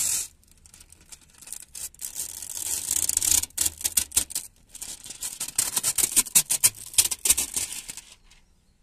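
Old, badly bubbled window tint film being peeled by hand off a car's rear windscreen: a brief loud rip right at the start, then after a lull a long run of crackling, tearing rips that stops about eight seconds in.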